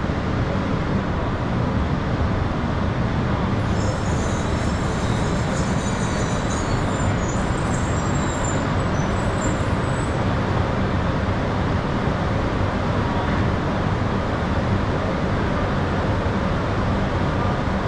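Steady low running noise of a Shinkansen train at the platform, with faint high squeals from about four to ten seconds in.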